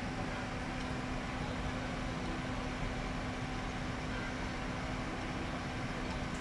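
A steady machine hum holding one low tone, over a constant even background noise of an urban street.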